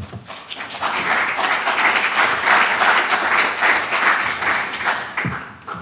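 Audience applauding, swelling up about a second in and dying away near the end.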